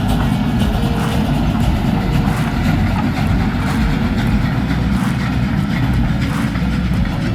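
Train hauled by the Ol49-69 steam locomotive running by with a steady, heavy low rumble.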